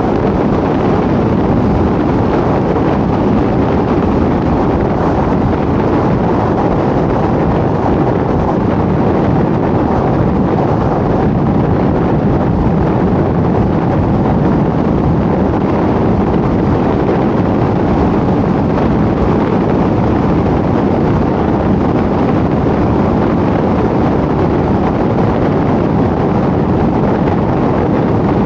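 A car driving at a steady speed on a paved road: even road and wind noise with no change in pitch or level.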